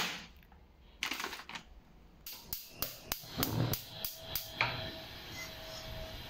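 A plastic dumpling bag crinkling briefly, then a gas hob's igniter clicking about eight times, roughly three a second, until the burner catches about four and a half seconds in and settles into a steady hiss.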